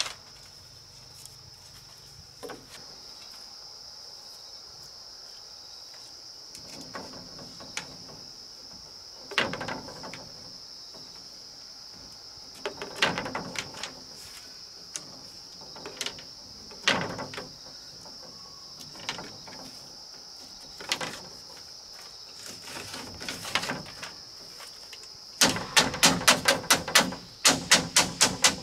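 Bamboo slats knocking and clattering as they are fitted into a bamboo fence, then a quick run of hand-tool blows on the bamboo, about four a second, near the end. A steady high insect drone runs underneath.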